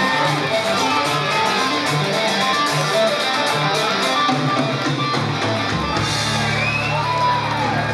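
Loud guitar-led rock music played as a boxer's ring-walk entrance music, strummed guitar over a steady beat; about six seconds in a held low bass note takes over.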